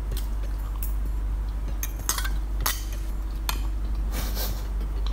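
Metal fork clicking against a plate during eating: a handful of short, sharp clinks spread out over a steady low hum.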